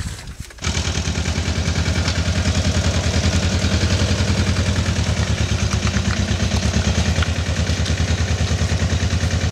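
Small engine of a motorized carrier cart running steadily, with an even, rapid pulse. It comes in abruptly about half a second in.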